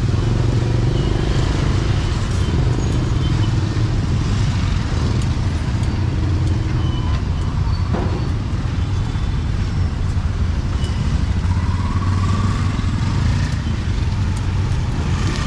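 Busy street-market ambience: a steady low rumble of passing motor traffic under a general hubbub, with one sharp knock about eight seconds in.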